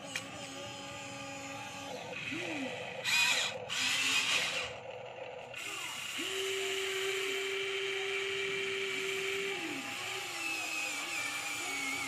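Small electric motors and gearboxes of Huina radio-controlled construction models whining as they run, with the pitch shifting between moves. There is a louder, noisy stretch about three to five seconds in, and a steady whine from about six seconds to nine and a half.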